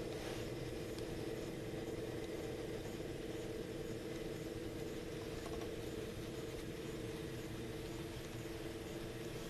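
Brass turbine-bladed gyroscope rotor spun at very high speed by jets of air: a steady hum of a few close tones over an even hiss, holding speed without rising or falling.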